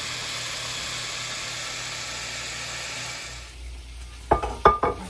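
Ground sausage sizzling as it browns in a cast iron skillet, a steady hiss that stops about three and a half seconds in. Near the end come several sharp knocks.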